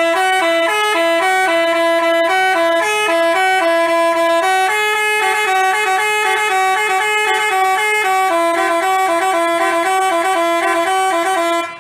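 Telolet basuri bus horn, a multi-tone air horn, playing a tune of steady, stepped notes with two notes sounding together. It starts abruptly and cuts off just before the end.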